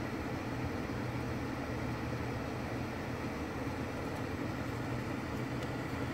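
Steady low mechanical hum with a constant hiss over it, like a running fan or similar appliance.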